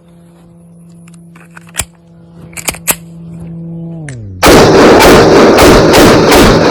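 Rapid gunfire from a firearm starts about two-thirds of the way in, very loud and distorting, at about four shots a second. Before it there is a quieter steady hum whose pitch slides down just before the shooting begins.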